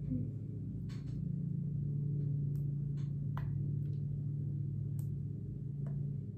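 A steady low hum with a few light clicks and taps as fresh flowers are dropped into an empty plastic water bottle and fingers brush its neck.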